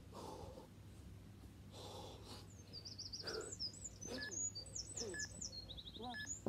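Hard, heavy breathing from a man sprinting through mountain climbers, a breath about every second and a half. From about two and a half seconds in, a small bird sings quick runs of repeated high chirps over it.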